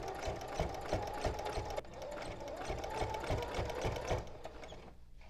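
Domestic electric sewing machine running, stitching the binding down along the edge of a T-shirt quilt through several layers of fabric, with an even stitch rhythm. It stops about four seconds in.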